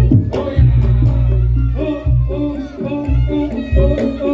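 Reog Ponorogo gamelan music: sharp drum and percussion strikes and a melody over a deep low tone that stops and starts again.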